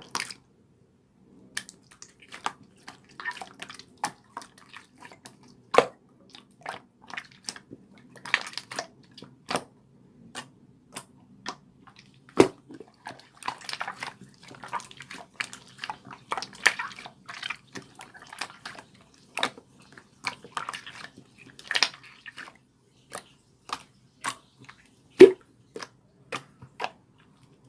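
A run of irregular clicks and taps, sometimes several a second and sometimes a second or more apart, a few much louder than the rest, over a faint low hum.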